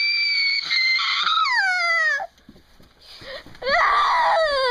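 Eerie high-pitched wailing cries. A long held note slides down in pitch and stops about two seconds in, and a second wail starts near four seconds and falls in pitch.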